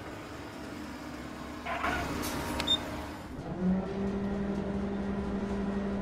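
Toy crane's motor sound effect: a steady low hum that comes in about three and a half seconds in, after a short burst of noise about two seconds in.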